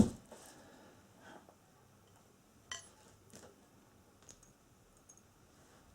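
A single knock as the part-assembled wooden chair frame is set down after being turned around. It is followed by a few faint clicks and one short metallic clink of small fittings being handled.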